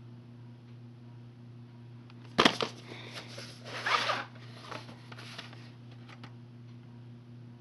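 Handling of a VHS tape and its case: a sharp knock about two and a half seconds in, then a few seconds of scraping and rustling as the cassette is slid out and turned in the hand. A steady low hum runs underneath.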